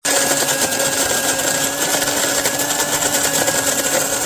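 Electric flat burr coffee grinder running steadily, its motor humming under a dense rattling grind.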